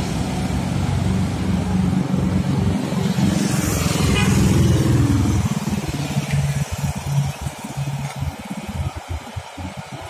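Road traffic: a heavy truck's diesel engine runs with motorcycles passing close by, swelling to its loudest about four seconds in. After that the engine sound drops and turns choppy and uneven.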